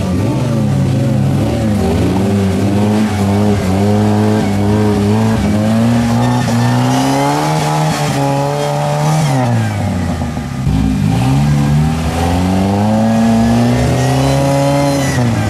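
Jeep Wrangler rock crawler's engine revving under load as it crawls over rocks. The pitch climbs slowly, drops sharply about ten seconds in, then rises again and falls off near the end.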